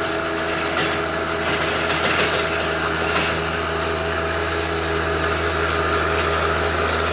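John Deere 1025R compact tractor's three-cylinder diesel running steadily under load as it drives a King Kutter rotary tiller through the soil.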